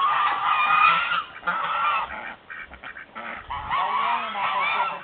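Several domestic geese honking in overlapping calls, with a lull about halfway through before the honking picks up again.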